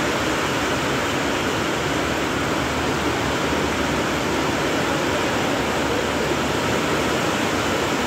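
Heavy rain falling steadily onto the railway tracks and platform: a dense, even downpour hiss.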